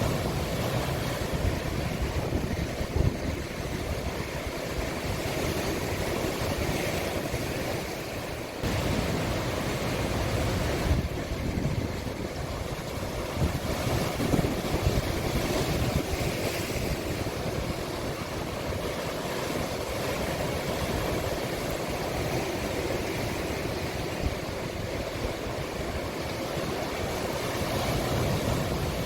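Sea waves breaking and washing on the shore of a small cove: a steady rushing surf with a few louder splashes.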